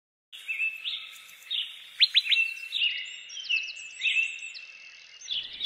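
Birds chirping and calling, several at once, with quick repeated whistled notes and a few fast downward-sweeping chirps. The sound starts abruptly after a brief silent gap.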